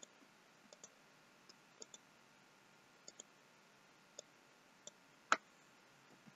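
Faint clicking of a computer mouse and keyboard: about a dozen light clicks, several in quick pairs, and one louder key press about five seconds in.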